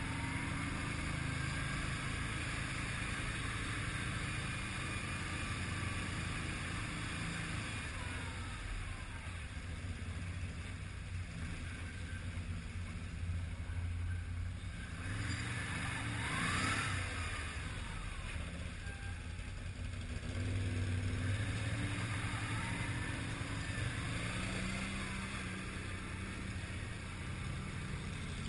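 ATV (quad bike) engine running at low street speed, heard from the rider's helmet, its pitch stepping up and down with the throttle. Another quad's engine can be heard close ahead. There is a brief louder surge about two-thirds of the way through.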